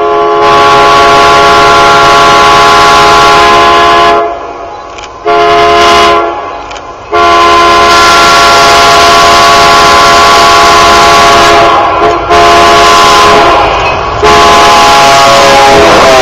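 Air horn of Pennsylvania Railroad EMD E8 diesel locomotives blowing a series of blasts as the train approaches: a long blast, a short one, then another long blast with a brief break in it. Near the end the locomotives pass close, with a loud rush of engine and wheel noise.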